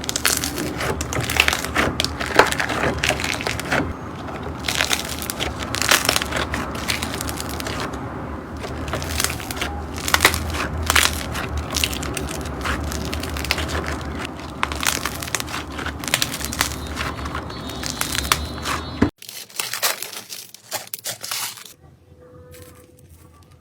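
Slime being squeezed and pressed by hand, making dense, irregular crackling and popping. The sound drops off suddenly near the end, with a few seconds of quieter crackling before it fades.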